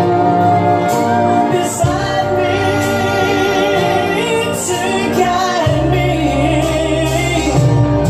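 A song with a woman singing, her long held notes wavering with vibrato, over a steady bass line.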